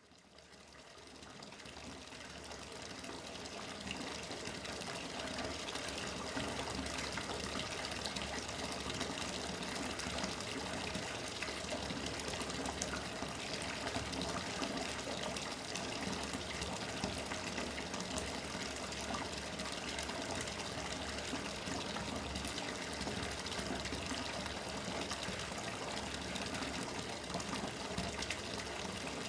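Water running from a bathtub tap in a steady gushing stream, splashing into the tub. It fades in over the first few seconds and then holds steady.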